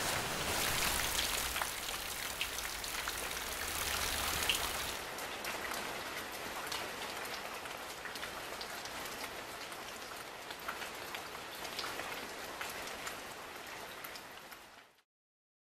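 Rain falling steadily, with many separate drop ticks; heavier for about the first five seconds, then lighter, and fading out near the end.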